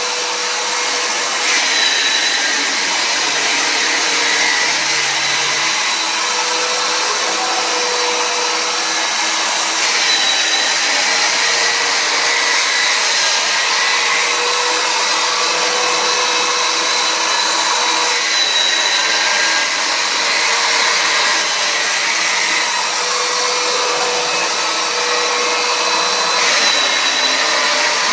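Robot-held drum sander running steadily, its abrasive roller polishing a curved wood-veneer panel: a continuous whirring hiss with a high whine, the whine dipping and returning about every eight to nine seconds as the tool's passes change.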